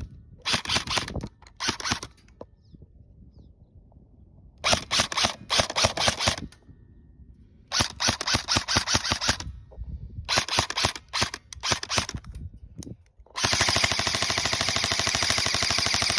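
Lancer Tactical LT15 airsoft electric M4 (AEG) firing full-auto in short bursts of rapid clicking shots with quiet pauses between them, then a long unbroken burst starting about 13 seconds in.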